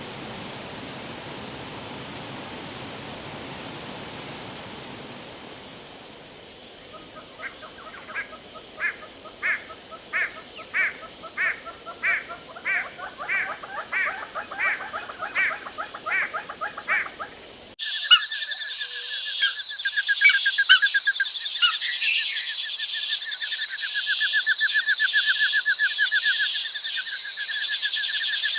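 Calls of small birds in two recordings joined by a sudden cut. First, a call repeats about twice a second over a steady high whine. Then a different bird gives a fast trilling call.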